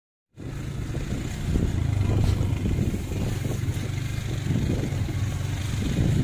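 A motor vehicle's engine running steadily with a low hum and a constant hiss over it; the sound cuts in suddenly a moment after the start.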